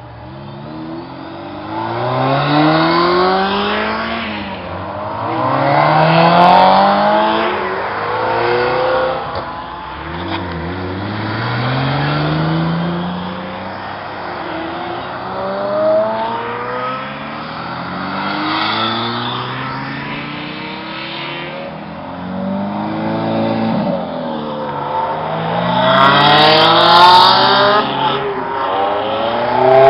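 Supercar engines accelerating hard, several cars one after another. Each engine note climbs in pitch and drops back at every upshift, swelling loud and fading away as the cars pass.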